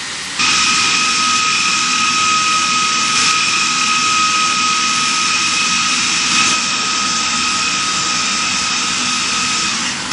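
Steady industrial machinery noise: a high whine over a loud, even hiss. It steps up about half a second in, and the whine drops out just before the end.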